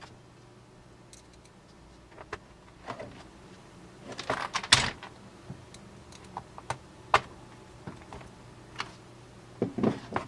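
Plastic keys of a Logitech K120 membrane keyboard being pressed in irregular clicks. A quick cluster comes about four seconds in and a faster run near the end. The keys with taped-over membrane contacts still click as normal, though they no longer register.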